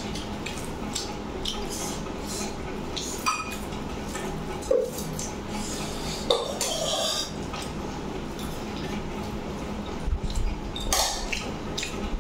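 Fingers mixing rice and curry on a stainless steel plate, with the food squishing and fingertips scraping and lightly tapping the metal, along with chewing sounds. A few sharper clinks stand out, about three seconds in, near five seconds, and near eleven seconds.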